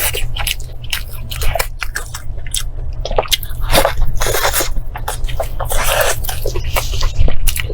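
Close-miked biting and chewing of grilled beef ribs, with many small clicks and a few longer crunching stretches, over a steady low hum.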